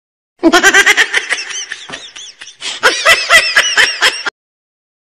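High-pitched laughter in two quick runs of rapid rising-and-falling 'ha' sounds, cutting off suddenly about four seconds in.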